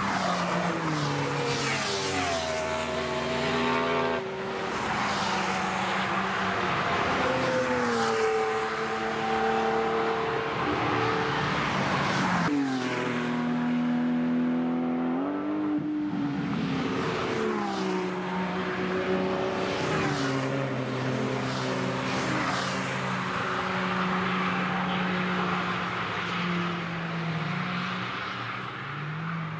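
Several sports cars passing one after another on a racetrack, their engines revving hard through gear changes, so the engine note climbs and then steps up and down again and again.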